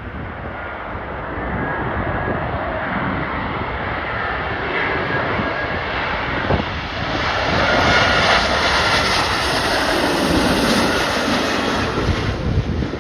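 Jet airliner's engines on final approach, growing louder to a peak about eight seconds in with a faint whine above the rumble, then dropping away sharply near the end. Gusty wind buffets the microphone throughout.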